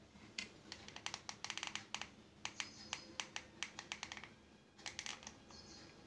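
Quick, irregular plastic clicks and taps in several bunches, from hands handling small plastic parts: a DC barrel connector and a hot glue gun on a plastic ice-box lid.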